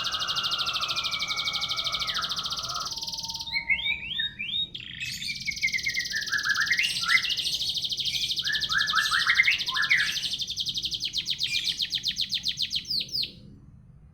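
Canary singing: long, very fast trills, with runs of short sliding notes in the middle. The song stops shortly before the end.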